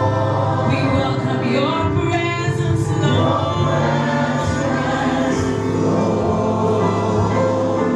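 Gospel choir singing with instrumental accompaniment, the voices moving and sustaining notes over a steady band.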